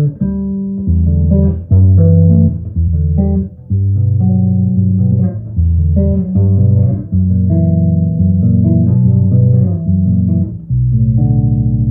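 Birdsong Hy5 electric bass with flatwound strings being played, a run of chords and notes changing about every half second, with a warm, low, round tone; the last chord is left to ring and dies away at the end.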